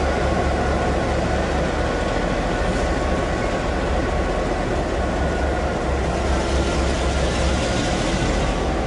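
Steady low hum and whir of stationary Taiwan Railway E200-series electric locomotives at close range, with a few faint steady tones above it.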